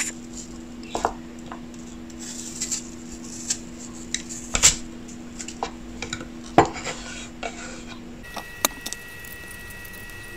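Kitchen knife clicking and tapping against a wooden cutting board as the seeds and core are cut out of apple quarters, in scattered sharp taps, the loudest about four and a half and six and a half seconds in. A steady low hum sits underneath and gives way to a faint high steady tone about eight seconds in.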